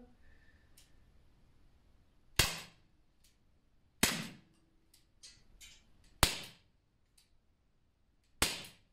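Umarex SA10 blowback CO2 pistol firing four shots about two seconds apart, each a sharp crack with a short tail. A few faint clicks fall between the shots.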